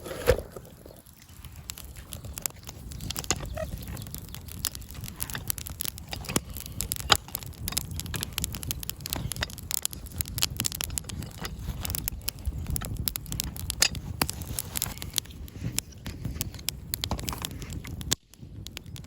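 Wood campfire crackling, with many small irregular pops and snaps over a low steady rush of flame.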